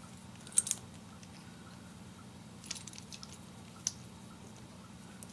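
Steel scope mount clicking and clinking as it is handled and its thumb screw worked by hand: a sharp click about half a second in, a few lighter clicks near the middle, and one more a second later.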